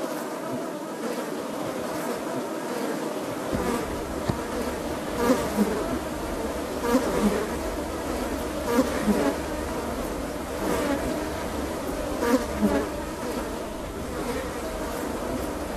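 Dense, steady buzzing of a swarm of insects, with louder buzzes swelling every second or two. A low rumble comes in about three and a half seconds in.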